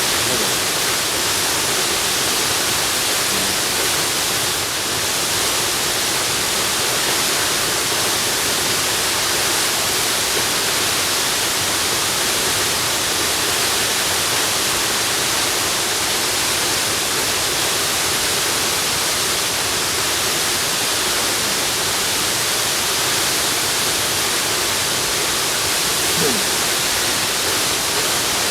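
Waterfall rushing with a steady, even hiss, heaviest in the high end.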